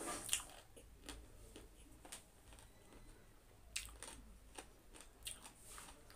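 Faint mouth sounds of a person eating close to the microphone: scattered soft clicks and smacks of chewing, a few sharper than the rest.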